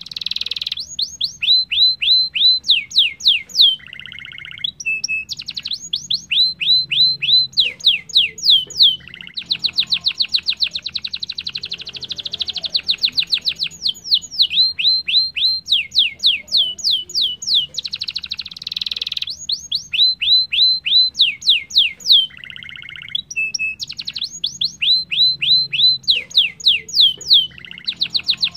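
Domestic canary singing a continuous song of quick downward-sweeping whistled notes and fast rolling trills, with a few lower buzzy notes; the same sequence of phrases comes round again about halfway through.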